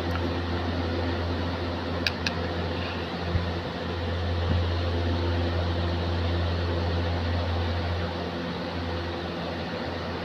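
Steady low machine hum with an even hiss, like a running electric motor. Two short clicks come about two seconds in.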